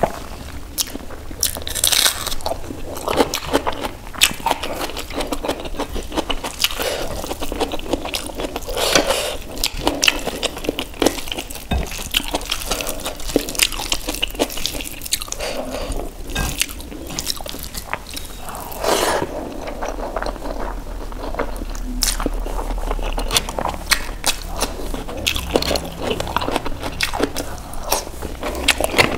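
Close-miked eating sounds: wet chewing with frequent sharp clicks and smacks, and the squish of fingers mixing rice into thick paneer gravy in a bowl.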